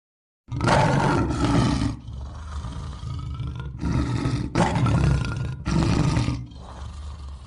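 Lion roar sound effect: a series of loud roars that start abruptly about half a second in and break off sharply between roars, growing quieter near the end.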